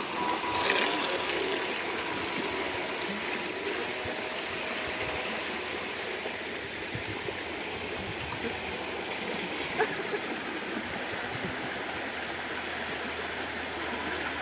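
River water rushing steadily over shallow rapids, with a single short click about two-thirds of the way through.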